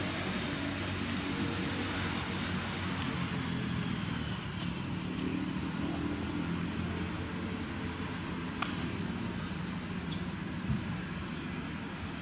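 Steady outdoor background noise: a low hum under a high hiss, with a few faint short bird chirps and sharp clicks in the second half.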